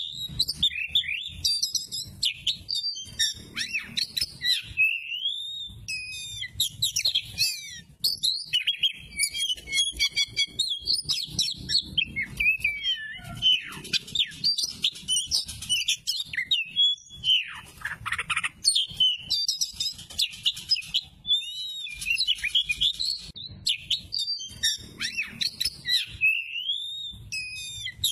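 Oriental magpie-robin of the Sumatran race (kacer) singing a rapid, varied song of whistles, trills and chattering notes. It comes in long runs broken by a few brief pauses.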